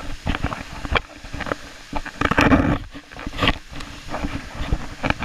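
Jogini Waterfall's rushing water heard close up, with irregular rumbling buffets on the microphone. The loudest buffet comes about two and a half seconds in.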